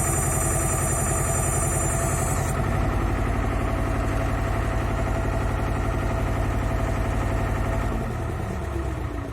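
Diesel engine of a 2009 Orteco 800 SMART pile driver running steadily at idle, with a faint high whine that stops about two and a half seconds in. Near the end the engine note drops and the sound gets a little quieter.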